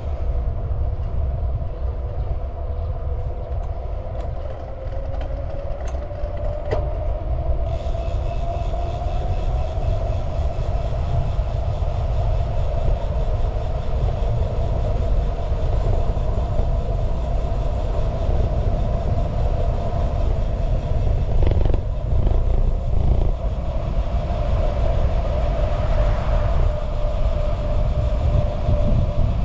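Steady, loud low rumble of a running vehicle, with a whine that slowly rises in pitch over the first ten seconds and then holds steady.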